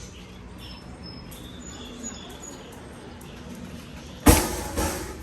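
Budgies chirping faintly over a steady background, then a sudden loud thump and rustle about four seconds in, followed by a smaller one half a second later.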